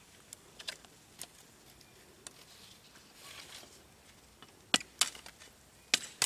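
Faint rustling and small snaps, then three sharp chopping blows of a long knife into wood near the end.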